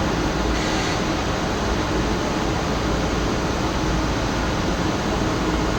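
DB class 425 electric multiple unit rolling in slowly, a steady rushing noise with a faint low hum underneath.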